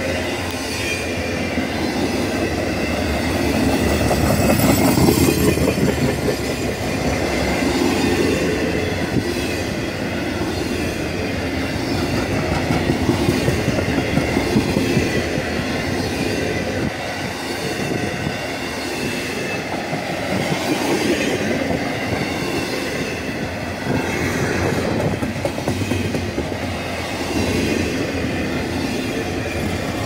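Cars of an intermodal freight train rolling past: a steady rumble of steel wheels on rail, rising and falling gently, with faint thin high tones from the wheels.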